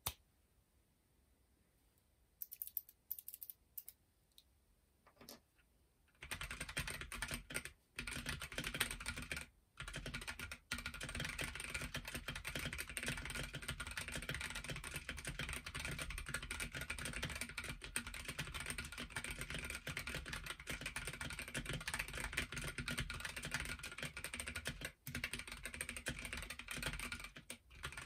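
Zeeyoo 65 mechanical keyboard with Boba U4T tactile switches (62 g springs) typed on with no desk mat underneath. A few scattered keystrokes come first, then fast continuous typing from about six seconds in, broken by a few brief pauses.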